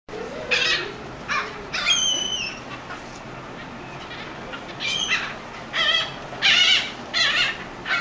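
Gulls calling: a string of short cries about one a second, with one longer drawn-out call about two seconds in and several cries overlapping near the end.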